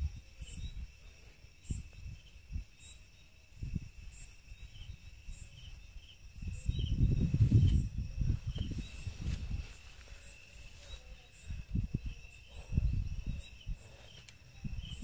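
Crickets chirping at night: a steady high trill with a separate chirp repeating about once a second above it. A low rumbling noise swells about seven seconds in, with scattered low thumps around it.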